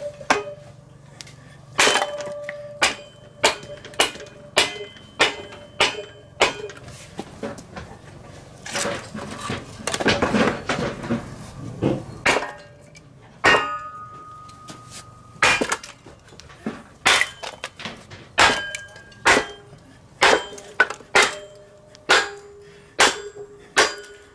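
Hammer blows on a log set in a Spalto kindling splitter, driving the wood down onto the blade to split it into kindling. It is a run of sharp strikes, one or two a second, many with a short metallic ring. Near the middle the strikes stop for a few seconds of rough noise, then start again.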